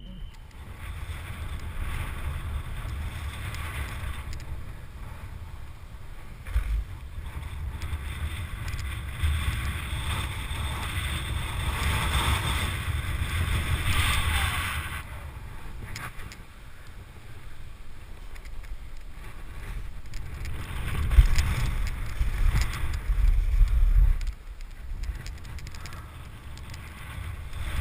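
Strong wind buffeting a GoPro's microphone: a rough low rumble under a hiss, swelling and easing, with several hard gusts in the second half.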